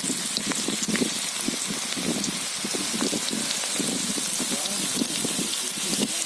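Onion pakodas deep-frying in hot oil: a steady sizzle with dense crackling and popping.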